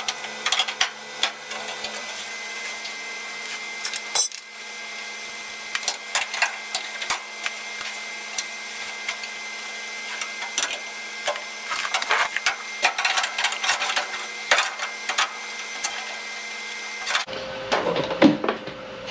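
Irregular metallic clanks, taps and knocks of a sheet-metal inner rocker panel being handled and fitted to a car body, over a steady machine hum. Near the end the hum stops abruptly and the background changes.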